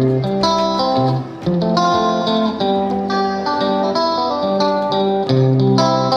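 Instrumental background music: a plucked guitar tune.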